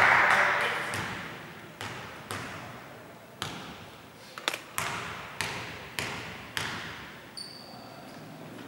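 A basketball bounced repeatedly on a hardwood court by a player at the free-throw line, about nine bounces each ringing out in a large empty hall. It opens with a short burst of noise that dies away within a second, and a brief high squeak sounds near the end.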